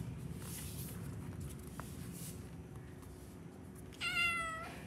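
Tabby kitten giving one short, high meow near the end.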